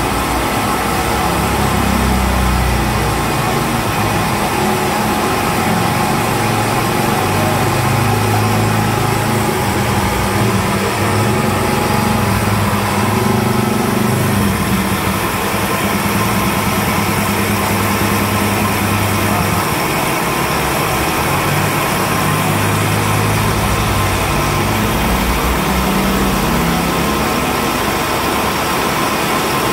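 Milling machine spindle running steadily while its end mill cuts into an aluminium piston's crown, machining a valve-clearance pocket. The sound is a constant machine hum with a steady high whine over it.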